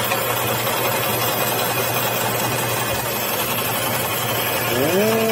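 Water-fed stained-glass bandsaw running, its blade cutting through two stacked layers of glass: a steady low hum under an even gritty hiss. A short tone that rises and falls in pitch comes in near the end.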